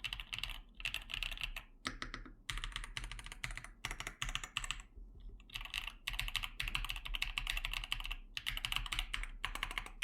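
Typing on a Yunzii B75 Pro 75% mechanical keyboard with Cocoa Cream V2 switches and PBT keycaps in a plastic case: rapid key clacks in runs of one to three seconds, with brief pauses between them.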